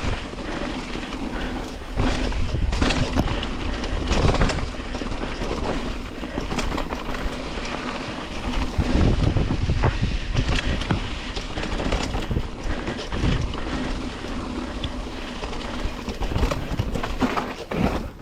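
Continuous rumbling and rattling of a fast ride over a rough track, broken by frequent knocks and clicks, with wind buffeting the microphone.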